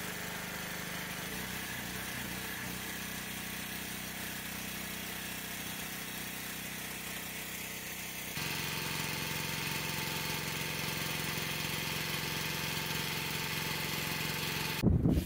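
Pressure washer running steadily, its small engine humming under the hiss of the water spray as hoop nets are washed. The engine note and spray hiss change abruptly about eight seconds in.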